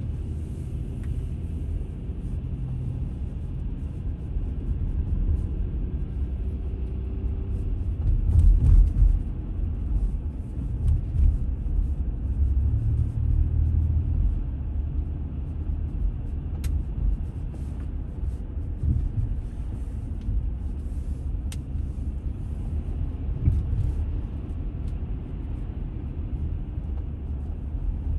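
Car interior noise while driving at low city speed: a steady low rumble of engine and tyres on the road, swelling louder about eight seconds in.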